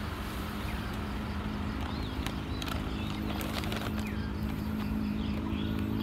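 Birds chirping in short rising and falling calls over a steady low motor hum, with scattered light clicks and rustles from handling a plastic bag of rice bran.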